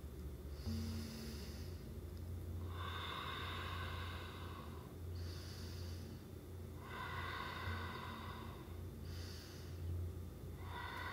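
A woman's slow, deliberate yoga breathing, audible on the microphone: about three rounds of a short, higher-pitched breath followed by a longer, lower one.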